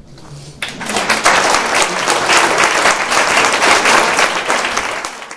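Audience applauding: the clapping breaks out about half a second in, builds quickly to a steady, dense patter, then cuts off suddenly.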